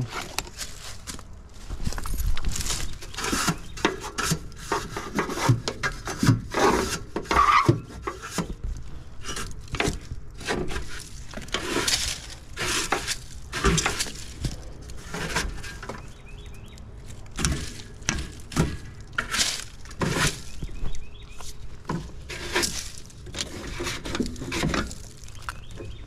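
Hand tools being rummaged and handled in a soft-sided tool bag: irregular clinks, clatters and rustles.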